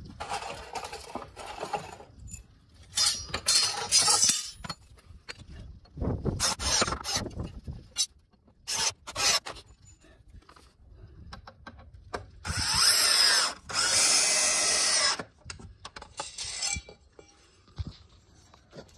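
Cordless drill driving screws through 2x4 uprights into the wooden base, in about six runs of one to three seconds with pauses between. The two longest and loudest runs come about two-thirds of the way through.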